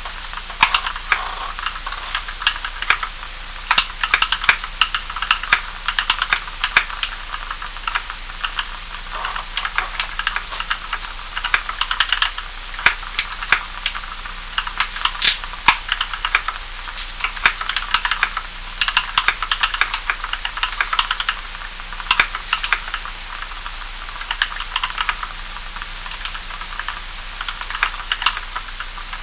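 Typing on an EO87 mechanical keyboard with linear Kailh Cream switches (75 g springs, switch films, lubed with Krytox 105 oil). It is a continuous, irregular run of keystrokes over a steady background hiss.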